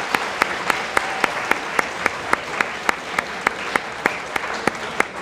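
Audience applauding, a steady patter of many hands, with one nearby clapper's sharp claps standing out at about three or four a second.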